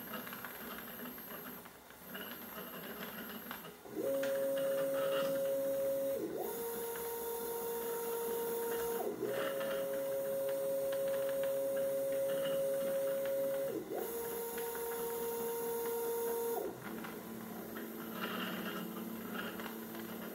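Stepper motors of a homemade CNC scroll saw's linear rails and geared rotary table whining at steady pitches as the table moves. The whine starts about four seconds in, switches pitch three times and stops near the end, with a quieter hum before and after.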